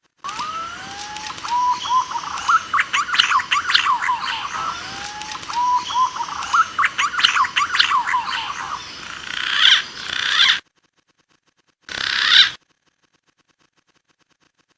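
Green pigeon (punai) calls played as a hunting lure. Each phrase is a couple of rising whistled glides, then a rapid tumbling run of higher warbling notes, and the phrase repeats about every four and a half seconds. The call cuts off suddenly and is followed by one short burst of song.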